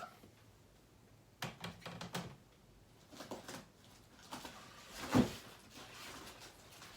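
Handling noise from hard plastic graded comic book slabs: short clicks and knocks as the cases are picked up, slid and set down, with one louder knock about five seconds in.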